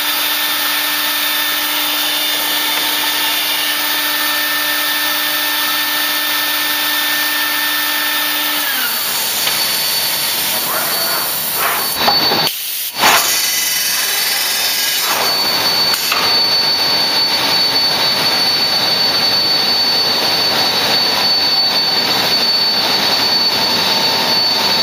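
Biesse Skipper 100 CNC panel boring machine running with a steady motor whine that winds down in pitch about nine seconds in. Two sharp knocks come a few seconds later, then a steady high whine over machine noise.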